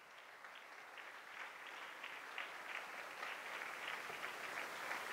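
Audience applauding: faint, scattered hand claps that grow steadily louder.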